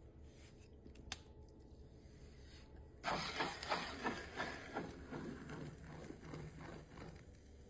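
Potter's wheel running with a steady low hum and a sharp click about a second in; from about three seconds in, a run of irregular rubbing strokes as hands work the wet clay on the spinning wheel.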